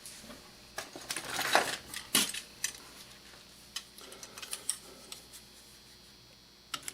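Handling noise from working on a .22 rifle and its scope: a run of small clicks, taps and light metallic knocks, busiest between about one and two seconds in, then a few scattered clicks.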